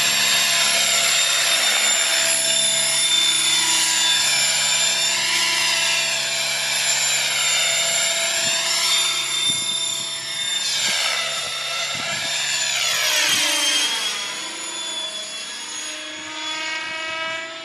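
Radio-controlled model helicopter in flight: a steady whine from its rotors and drivetrain that swells and shifts in pitch as it passes back and forth, growing fainter over the last few seconds as it moves away.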